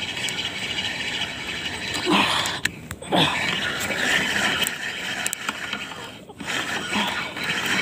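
Spinning reel being cranked steadily, its gears whirring as line is wound in against a freshly hooked fish. The sound breaks off briefly twice.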